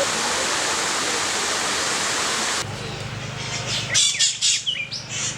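Steady rushing of a waterfall, cut off abruptly about two and a half seconds in. Then comes a low hum and, from about four seconds, a string of loud, harsh bird squawks.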